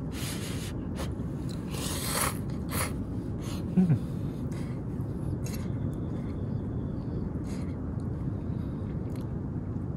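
A person slurping ramen noodles and eating: a few short slurps in the first three seconds, then quieter eating, with a short low vocal sound about four seconds in. A steady low background rumble runs underneath.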